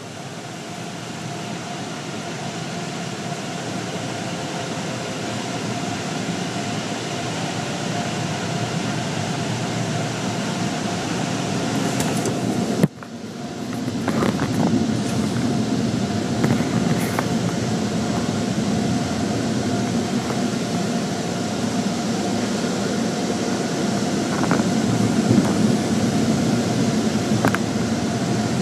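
Automatic tunnel car wash heard from inside a car: a steady rush of spraying water and machinery with a constant hum, slowly growing louder, broken by one sharp click and a brief dip just before the middle.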